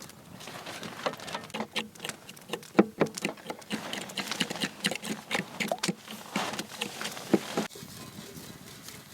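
A rapid, irregular patter of light taps and clicks, which stops abruptly about three-quarters of the way through.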